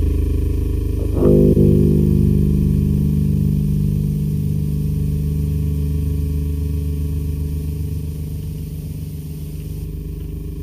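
Industrial noise music: a low, sustained droning chord. It is struck afresh about a second in, then slowly fades.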